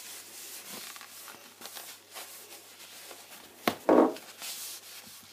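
A tabletop being wiped by hand, with a soft steady rubbing for the first few seconds. This is followed by a sharp knock and then a short pitched sound, the loudest thing here, before it goes quiet near the end.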